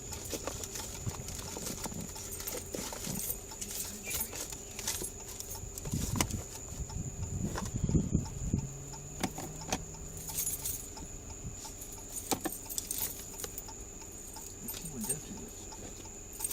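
A bunch of keys jangling, with scattered clicks and knocks as keys are tried in the lock of a locked box, over a steady faint high-pitched whine.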